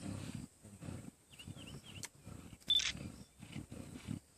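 Lions growling in repeated low pulses while feeding on an impala carcass. A sharp click comes about two seconds in, and a louder brief rasping noise just after it.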